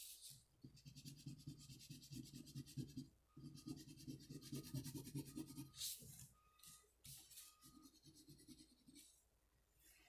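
Faint scratching of a construction paper crayon shading on black construction paper in rapid, even back-and-forth strokes for about six seconds, then a few short brushing sounds as the sheet is slid and turned on the table.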